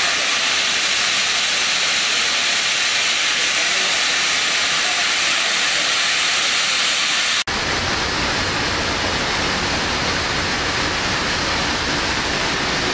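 Loud, steady hiss of gas escaping from a gas pipe damaged when a bus crashed into it, a sign of an ongoing gas leak. After a cut about seven seconds in, a steady rushing noise with more low rumble carries on.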